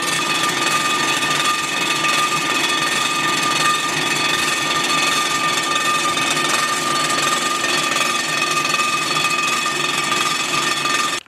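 Blockmaster 85B surfacer's spinning cutter head milling the cast-iron deck of an AMC 258 inline-six block on a light 0.002-inch pass: a loud, steady machining noise with a constant whine. It stops suddenly at the very end.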